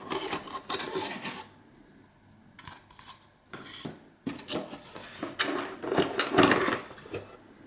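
Cardboard packaging being handled: a cardboard insert and the inner compartments of a camera box rubbing and scraping as hands lift the insert out and reach in for the packed cables and plugs. The rubbing comes in irregular spells, the longest in the second half.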